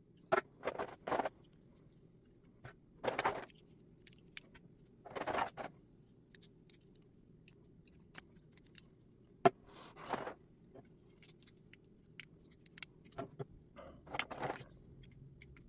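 Packaging and plastic parts of a model-kit figure being handled: irregular rustling and crinkling bursts with sharp plastic clicks, over a faint steady low hum.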